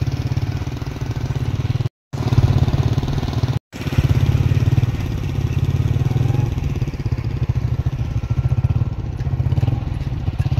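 Small motorcycle engine running steadily under way, a fast low pulsing exhaust note, with the sound cutting out briefly twice near the start.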